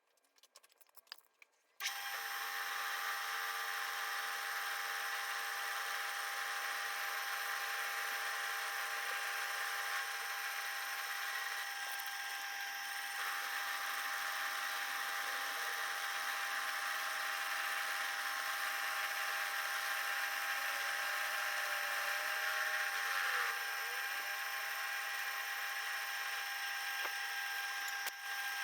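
Small CNC mill's spindle running with a steady whine of several constant tones, a 6 mm carbide end mill taking light cuts to mill a flat in hardened 316 stainless steel bar. A few faint clicks come just before the spindle starts, about two seconds in.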